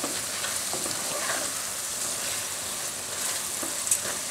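Okra sizzling in hot oil in a kadai as ground spices are stirred through it with a spatula, with a few light knocks of the spatula against the pan.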